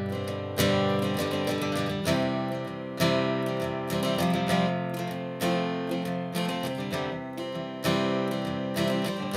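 Background music: a strummed acoustic guitar playing chords with an even strumming rhythm.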